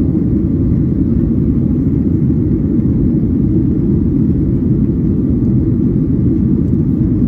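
Steady, low rumble inside the cabin of a Boeing 737-800 climbing out after takeoff: the noise of its CFM56-7B turbofan engines and the airflow, heard from a window seat behind the wing.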